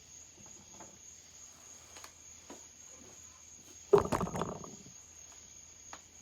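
Faint clicks of small chainsaw bolts being handled, then a short loud clatter about four seconds in as metal parts are put down, over a steady high-pitched chirring in the background.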